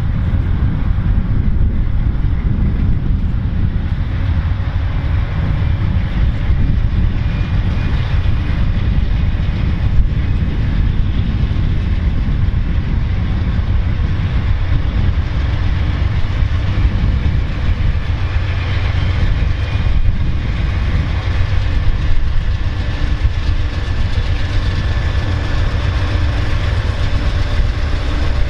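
Two GE P42DC Genesis diesel-electric locomotives heading an Amtrak passenger train, their engines running under power as the train approaches, with a deep steady rumble that grows as it draws near. Wheel and rail noise joins in near the end as the locomotives reach the microphone.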